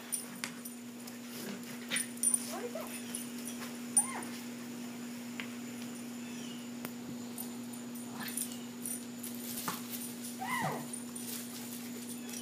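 Small long-haired dog whining and yipping in play, a few short calls that rise and fall in pitch, with some sharp clicks near the start. A steady low hum runs underneath.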